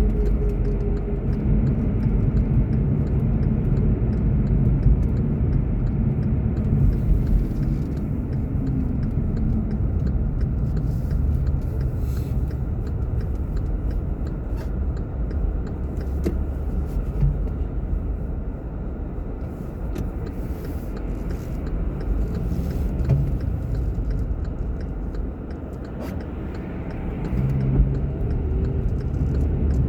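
Car driving: steady road and engine rumble, the engine note falling over the first several seconds as the car slows, and rising again briefly near the end.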